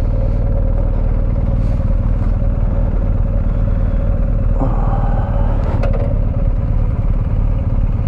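BMW R 1250 GS boxer-twin engine idling steadily, with a single click about six seconds in.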